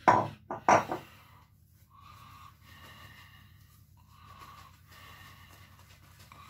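Two short, loud noises in the first second, then an Omega 829 boar-bristle shaving brush working lather onto the face in even swishing strokes, about one a second.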